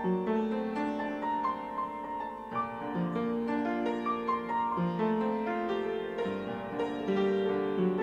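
Slow background music on a piano-like keyboard, with single held notes following one another.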